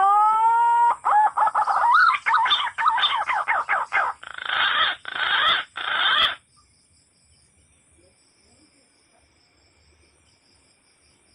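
Rooster crowing, one long crow that opens on a rising note, breaks into choppy, harsher parts and stops about six seconds in. Near silence follows.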